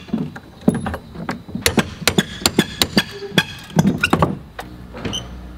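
Irregular sharp knocks and taps, two or three a second, some with a short metallic ring: hand tools striking and prying at an old wooden window frame as it is taken out.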